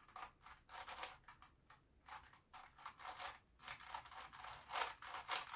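Plastic clicks and rattles of a Grilles II puzzle cube's layers being turned by hand: a quick, irregular run of faint clicks, several a second.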